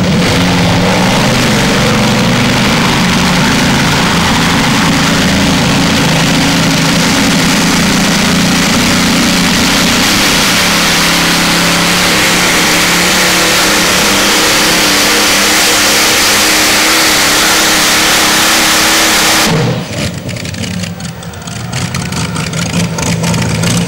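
Modified pulling tractor's engine running flat out under load as it drags the weight sled down the track. About twenty seconds in it is cut back abruptly at the end of the pull and drops to a much quieter run.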